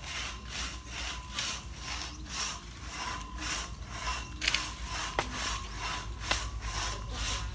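Bamboo pole scraping and shaking through the leafy branches of a cashew tree in an even rhythm of about two to three strokes a second, with a few sharp snaps about halfway through.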